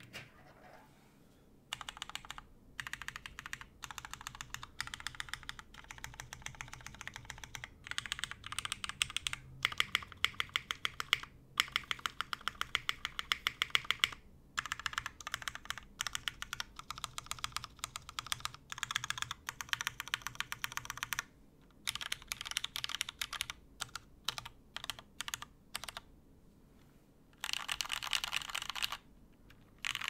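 Typing on a full-aluminium GHS.RAR mechanical keyboard with lubed Hyperglide Cherry MX Black linear switches, a full aluminium plate and GMK keycaps: runs of fast keystrokes in bursts with short pauses between them. It starts after a quiet second and a half.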